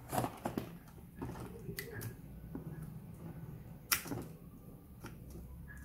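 Handling clicks and rattles of a car cigarette-lighter plug being pushed into a 12-volt socket adapter, with one sharp click about four seconds in as it seats, over a faint steady low hum.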